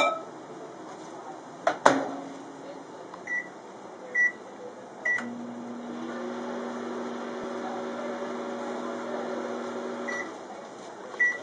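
GE countertop microwave oven: the door is shut with two quick clicks, three keypad beeps follow, then the oven runs with a steady hum for about five seconds. The hum stops with a beep, and another beep comes near the end.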